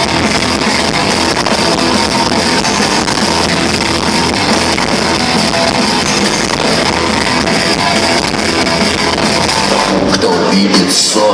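Rock band playing live in a club, loud and dense. About ten seconds in, the deep bass drops out.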